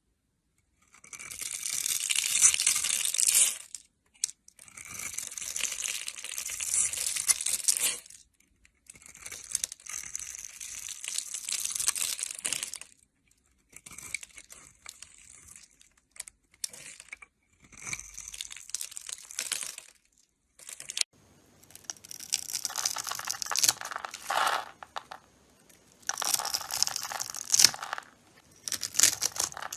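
A knife cutting and shaving a bar of dry soap: a series of crisp, crumbly scraping cuts, each one to four seconds long, with short pauses between them.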